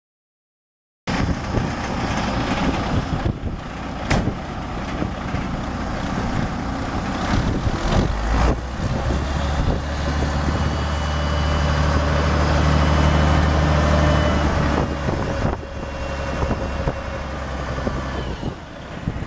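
A truck's International six-cylinder turbo diesel running, with a sharp click about three seconds in. Past the middle the engine note steadies and grows somewhat louder for several seconds, then eases off.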